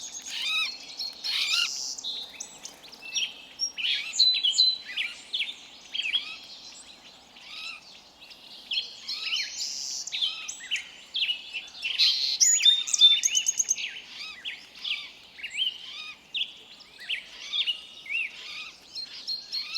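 Several forest songbirds chirping and whistling over one another, many short calls, sweeps and quick trills overlapping, with a brief lull in the middle.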